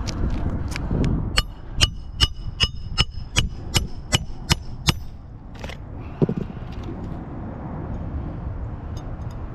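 A run of about a dozen sharp metal taps, close to three a second, each with a short ring, from about a second and a half in until about five seconds in: a hammer striking a metal tool. One duller knock follows about a second later, over a steady low rumble.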